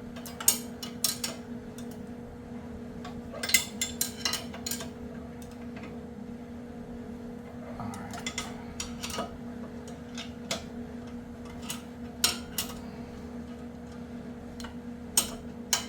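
Hand ratchet and metal tools clicking and clinking in short irregular bursts while the suspension bracket bolts are tightened, over a steady hum.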